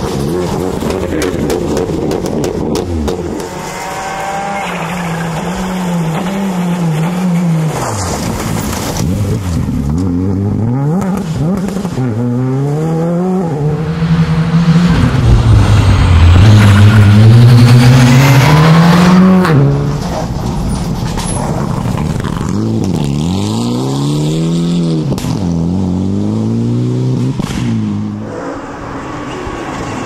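Several rally cars, one after another, accelerating hard on a stage and passing close by. Each engine note climbs, drops at every gear change and falls away as the car goes past. The loudest pass comes about halfway through.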